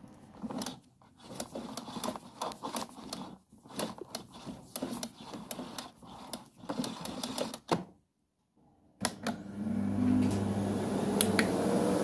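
A canister vacuum cleaner's power cord is pulled out of its reel, rattling and clicking irregularly for several seconds. After a short break, the vacuum's motor switches on and runs with a steady hum and a slowly rising whine as it spins up.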